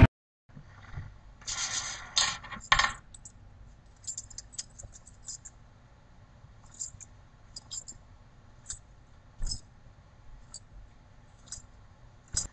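Small metal chain jingling and scraping as it is gathered up off a wooden tabletop, loudest about two seconds in, then scattered light clinks of its links as it is worked between the hands.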